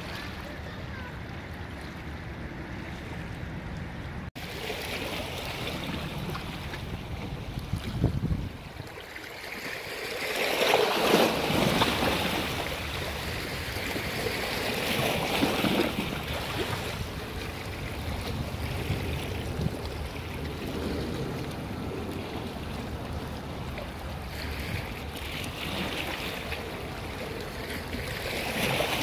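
Sea waves washing onto the shore, swelling and fading every few seconds, loudest about ten seconds in.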